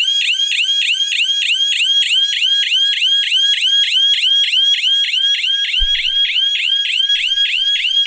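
Electronic siren of a shop security alarm system sounding in rapid rising sweeps, about five a second. It has been set off by the opened door's sensor after the entry delay ran out.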